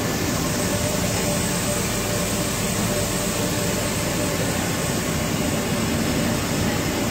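Steady running noise of machinery, an even roar with a faint high whine, at a constant level.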